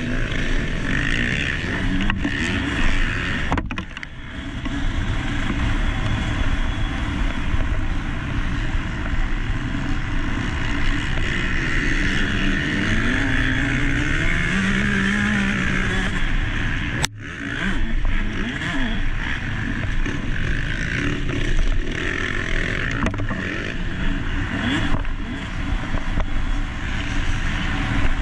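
Motocross dirt bike engine revving up and down under race load, heard close on the bike's action camera with heavy wind and rumble noise. The sound briefly drops out twice.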